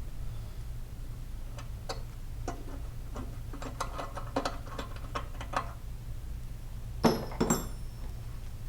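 Light metallic clicks and ticks as a tap wrench is worked in the engine's threaded bolt hole, over a steady low hum. Two louder clunks come about seven seconds in.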